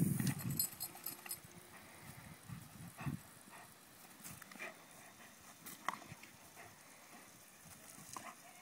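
German Shepherd dog playing in a lawn sprinkler's water jet: scattered short snaps, snuffles and splashes as it bites at the spray, with a soft low bump at the start.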